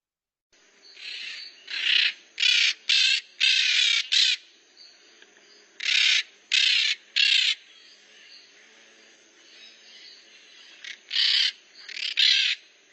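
A flock of maritacas (Pionus parrots) giving loud, harsh, screeching calls in clusters of short bursts with pauses between, and quieter chatter in the gaps.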